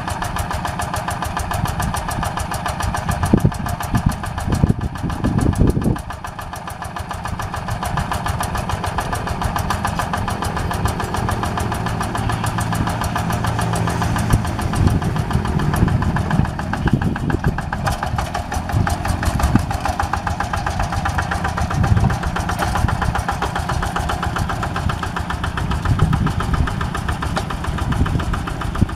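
Yanmar two-wheel walking tractor's single-cylinder diesel engine running steadily, with an even rapid chugging. A few heavier low thumps come about three to six seconds in.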